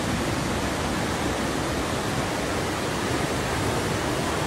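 Fast-moving floodwater rushing, a steady even noise with no breaks.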